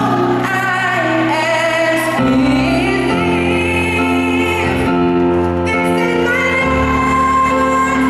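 Music: a woman singing held notes over instrumental accompaniment with steady chords changing every second or two.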